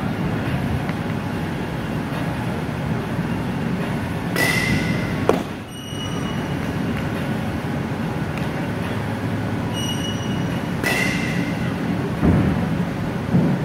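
A steady low rumble fills the space, with a single sharp pop about five seconds in as a pitched baseball hits the catcher's mitt.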